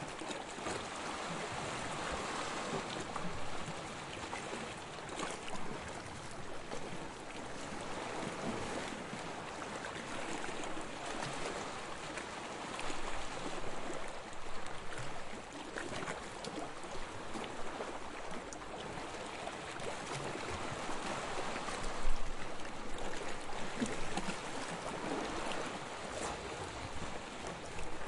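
Sea water lapping in small waves, a steady wash of water with gentle swells and one louder splash about 22 seconds in.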